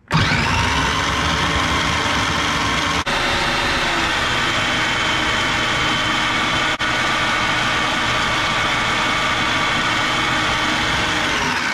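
Electric blender motor running at high speed, whizzing chopped aromatics, nuts and coconut milk into a wet spice paste. It spins up at the start, cuts out for an instant twice, and begins to wind down near the end.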